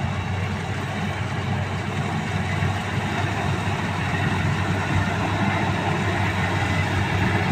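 Rice combine harvester running steadily, its engine and machinery making an even drone.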